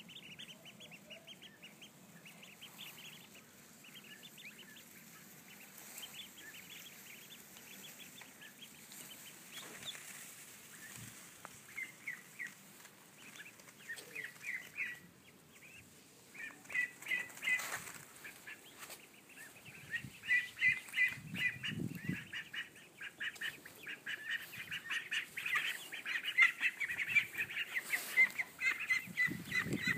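Ducklings peeping: scattered high peeps at first, building about halfway in into a steady, rapid chorus of peeps that grows louder toward the end.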